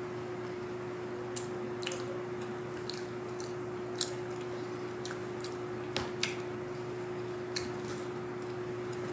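Mouth sounds of a person eating, with chewing and wet lip smacks, and a few sharp clicks of a metal fork against a plate, the loudest about six seconds in. A steady low hum runs underneath.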